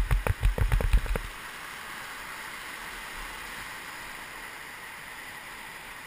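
Whitewater rapids rushing steadily. A quick run of about a dozen knocks and thumps fills roughly the first second, then only the even rush of water remains.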